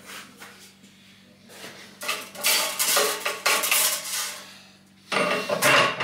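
Copper refrigerant tubing of a hand-bent evaporator coil clinking and clattering against itself and the steel lever tube bender as the coil is handled and set in place. The clatter starts about two seconds in, stops briefly, and starts again near the end.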